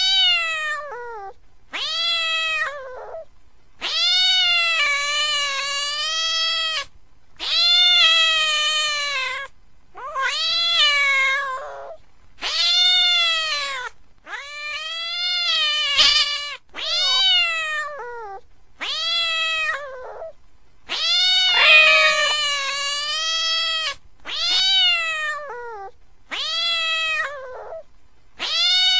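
A cat meowing over and over: about a dozen long, drawn-out meows, each one to three seconds, with short pauses between them.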